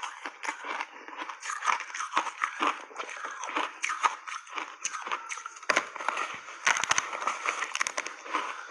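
Hard block ice crunched and chewed close to the microphone: a dense run of sharp cracks and crackles, with a quick cluster of louder cracks about seven seconds in.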